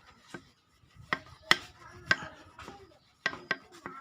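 A series of sharp metal clinks and knocks, some with a brief ring, from a rag-wrapped steel rod being handled and worked against the suspension fork's lower leg while it is cleaned out.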